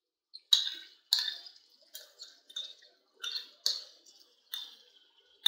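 Hot oil in a karahi crackling and spattering around frying chicken tails and chopped tomatoes, in short sharp bursts that fade quickly, about one or two a second.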